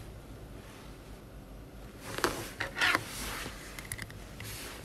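Handling noise close to a phone microphone: a few short rustles about two to three seconds in, then light clicks near the end, as the novelty sunglasses are handled.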